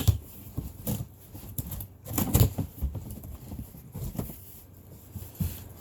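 Knife slitting the packing tape on a cardboard box and the flaps being worked open: irregular scratching, rustling and a few knocks of cardboard, loudest about two seconds in.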